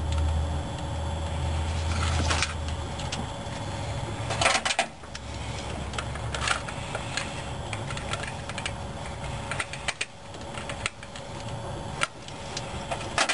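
Small clicks and rubbing of the ignition coil wire and spark plug wires being handled and fitted at the coil and distributor cap of an engine that is not running. Under them a steady low hum fades out about five seconds in.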